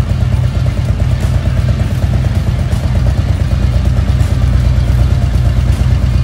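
Harley-Davidson Milwaukee-Eight 117 V-twin of a 2019 CVO Street Glide idling steadily, a loud, even low rumble.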